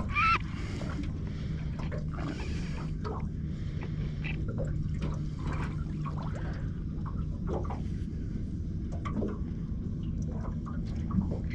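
Water lapping and dripping around the hull of a small aluminium boat, with light scattered taps, over a steady low hum. A brief high chirp right at the start.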